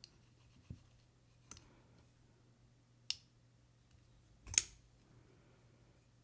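Zero Tolerance 0808 folding knife's blade being worked open and shut by hand: a few light clicks over the first three seconds, then one louder sharp snap about four and a half seconds in.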